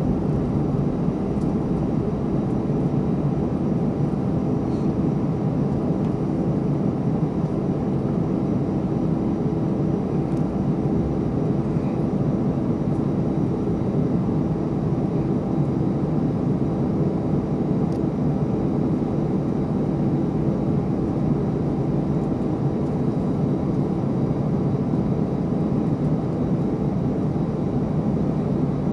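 Twin-engine jet airliner's engines at take-off thrust, a steady rumble as it rolls, lifts off and climbs away.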